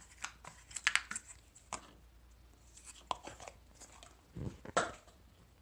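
Irregular small clicks, taps and scrapes of a 2.5 mm Allen wrench and hex screws being worked into a keyboard's metal top plate, with a cluster of louder clicks about a second in and another just before the end.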